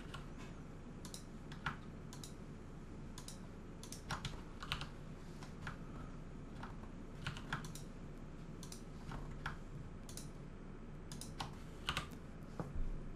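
Faint clicks of computer keyboard keys and mouse buttons, scattered and irregular, from selecting vertices and pressing keys in Blender. A low steady hum runs underneath.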